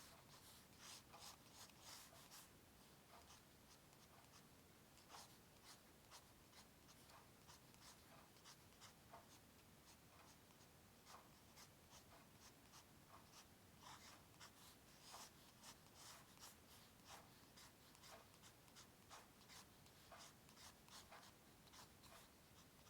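Faint strokes of a drawing tool on paper: many short scratches at an uneven pace, coming in clusters with brief pauses between them.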